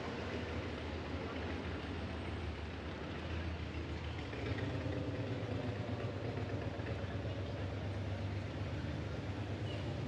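Street ambience dominated by the steady low hum of motor traffic on the road beside the pavement, growing a little louder about halfway through.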